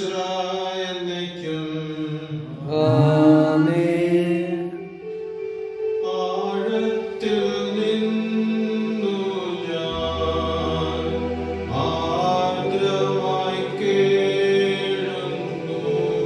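Sung liturgical chant of a Malayalam Holy Mass: voices holding long notes that slide from pitch to pitch.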